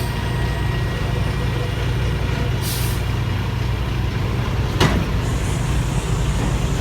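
Semi truck's diesel engine idling steadily, with a short hiss of air about three seconds in and a single sharp clank near five seconds.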